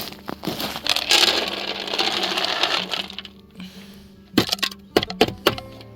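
Dry dog food poured into a bowl: a loud rush of kibble for about two seconds, then a few separate sharp clicks of pieces landing about four and a half seconds in.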